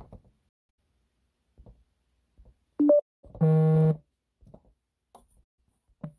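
A short electronic beep that steps up in pitch, followed straight away by a loud, steady electronic buzz lasting under a second, like a device alert tone.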